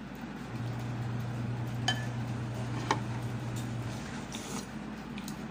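A metal spoon clinks twice against a dish, with a brief ring each time, among a few fainter clicks of eating. A low steady hum runs underneath and stops a little before the end.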